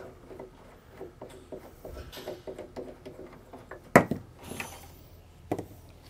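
Light ticking and rubbing of a refrigerator's threaded front adjustment foot being unscrewed by hand. About four seconds in comes a single sharp knock, with a lighter one a second and a half later.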